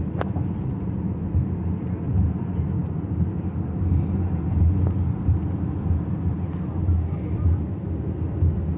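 Steady low rumble of road and engine noise heard inside a car's cabin at highway speed. Two light clicks come through, one just after the start and one about six and a half seconds in.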